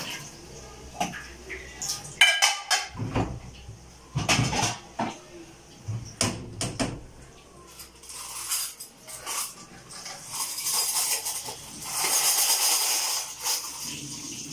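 Metal dishes and bowls clattering and knocking against each other and a stainless-steel sink as they are washed, with tap water running into the sink in longer stretches in the second half.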